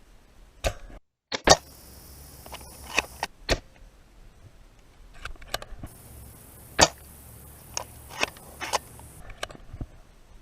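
Airsoft guns firing single shots: about ten sharp cracks at irregular intervals, the loudest about a second and a half in and again near the middle.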